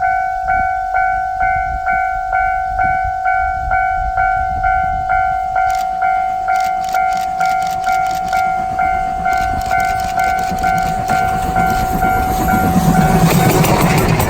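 Japanese level-crossing warning bell ringing, a pulsing electronic ding about twice a second. About halfway in, the clacking of the approaching train's wheels over the rail joints joins in. Near the end the noise of the C57 steam locomotive and its coaches swells as the train reaches the crossing, and the bell fades out.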